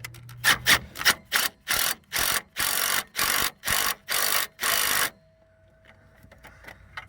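Impact gun fired in a string of short trigger bursts, about a dozen in under five seconds, the later ones longer, running down the top nut on a front shock absorber's stem.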